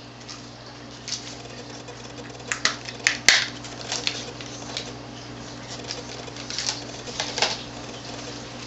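Plastic clicks and taps of RAM modules being handled and pressed into motherboard slots, with a cluster of sharp clicks about three seconds in and another group near the end, over a steady low hum.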